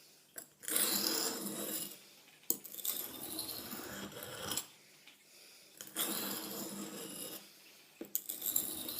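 Steel blade of a Buck hunting knife being drawn across a sharpening stone: four long, rasping strokes with short pauses between them.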